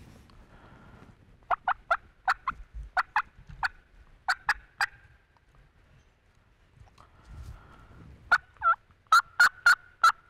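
Turkey yelps and sharp cutting notes in two quick runs: about a dozen raspy notes starting about a second and a half in, then after a pause another fast run near the end with one warbling note.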